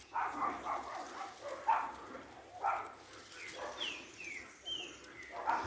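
Distant barking calls from an unseen animal, about one a second, with a few short, high, falling chirps a little past the middle.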